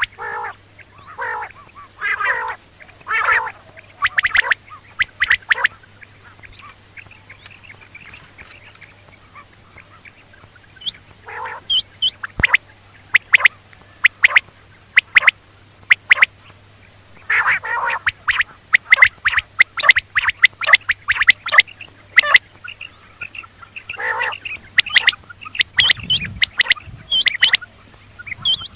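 Quail calling: irregular runs of short calls, some harsh and rasping, others sharp high chirps, quieter for a few seconds in the middle.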